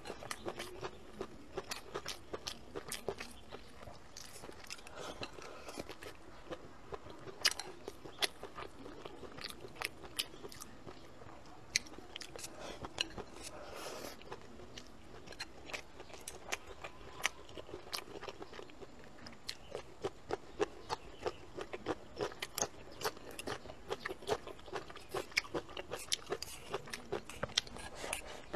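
Close-miked eating: a person chewing mouthfuls of rice with braised pork and tofu, with many irregular short wet mouth clicks.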